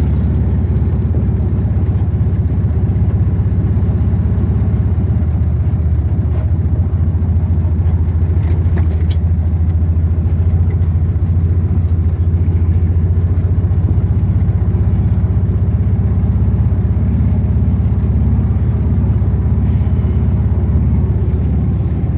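Motor vehicle engine running steadily while driving, a constant low rumble, with a few light knocks around the middle.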